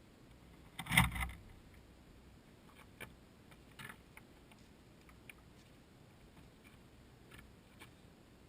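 A sharp double knock about a second in, then a few faint scattered clicks.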